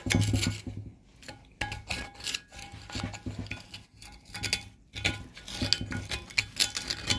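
Metal tool scraping and scrubbing grime out of a hole in an old blacksmith's leg vice: irregular rasping strokes with light metallic clinks and faint ringing.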